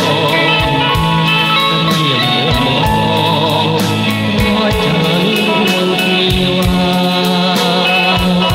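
Old Khmer pop song recording playing, with melody instruments over a bass line and a steady drum beat.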